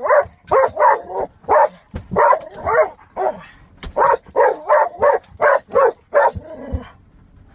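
A dog barking excitedly in a rapid run of short barks, about three a second, that stops near the end.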